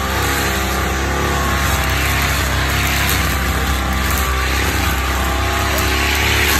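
Backpack brush cutter's small petrol engine running steadily at working speed while its spinning head cuts grass.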